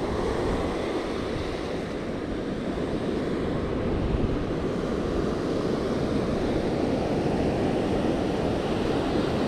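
Small ocean waves breaking and washing up a sandy beach, a steady surf wash, with wind buffeting the microphone.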